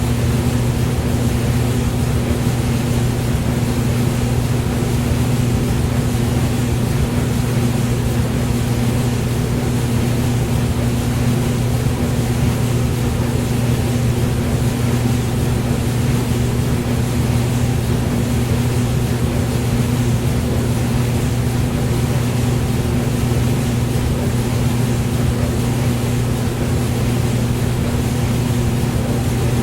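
Hair dryer running steadily: a constant low motor hum over an even rushing hiss of air, with no change in speed.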